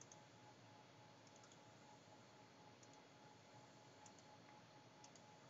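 Near silence: faint room tone with a few very faint, scattered clicks.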